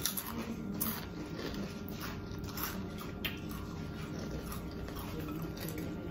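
Hot Cheetos being chewed and picked by hand out of glass bowls: scattered short crunches and rustles.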